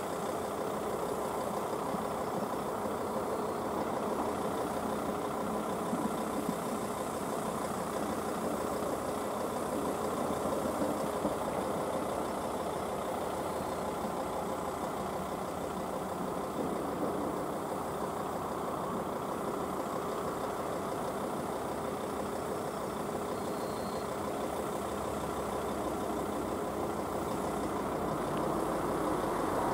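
An engine idling steadily, growing slightly louder near the end.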